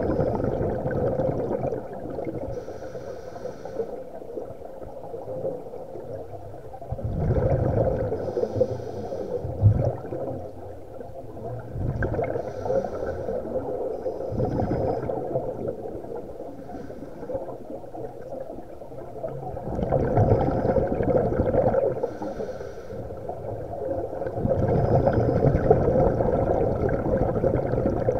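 Scuba breathing through a regulator, heard underwater: rushing, bubbling exhalations a few seconds apart, with a brief higher hiss between them.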